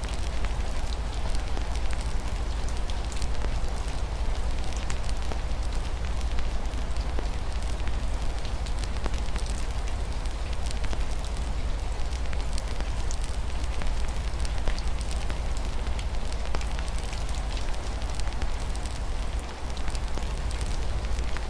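Wood fire crackling with many small pops, over a steady hiss of rain on a window and a deep, steady rumble.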